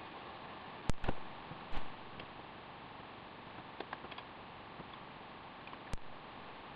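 A few sharp clicks, two close together about a second in and another near the end, over a faint steady hiss, with a few light taps in between.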